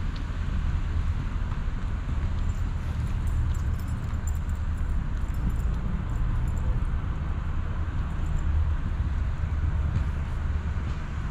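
Wind buffeting the action camera's microphone, an uneven low rumble, over a steady hiss of outdoor street noise from wet roads.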